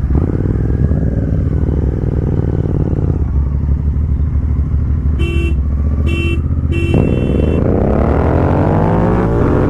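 Royal Enfield Continental GT650 parallel-twin engines running at low revs, with three short beeps a little past the middle. Then the engines rev up, rising steadily in pitch as the bikes pull away in first gear.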